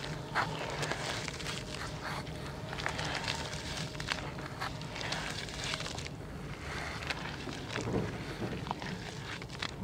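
Hands crushing crunchy, crumbly chunks in a bucket of muddy water: a run of irregular gritty crackles and wet squelches as the lumps break down into slurry.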